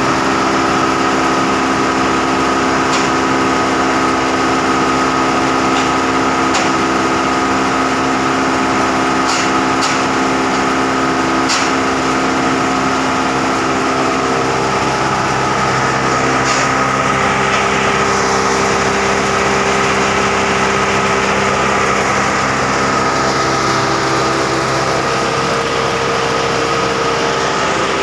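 Heavy-duty wood chipper running steadily with a loud mechanical drone, broken by a few sharp cracks. Its tone shifts a little about halfway through.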